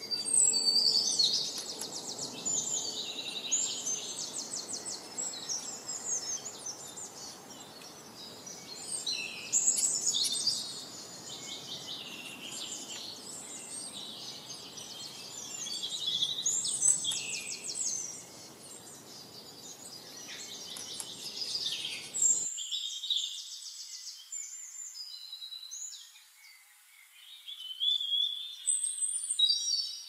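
Songbirds singing: repeated fast high trills and chirps in phrases of a second or two, over a low background rush. The background rush drops away suddenly about three-quarters of the way through while the song goes on.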